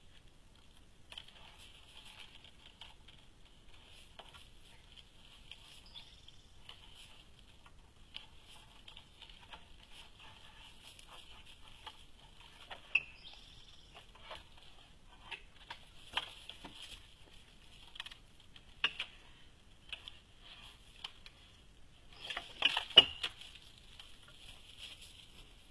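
Scattered knocks and rustles from a bear nosing around, with a loud cluster of knocks about 22 to 23 seconds in. A steady high hiss runs underneath.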